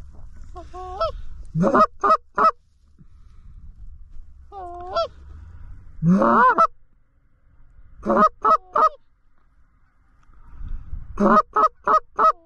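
Canada goose calls blown in quick runs of three or four short, loud honks and clucks, with softer drawn-out moans between the runs: hunters calling geese in toward the decoys.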